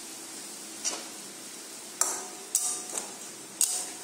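Flat metal spatula knocking and scraping against a stainless-steel kadai while fish pieces are stirred in curry: four sharp metallic clinks, some with a brief ring.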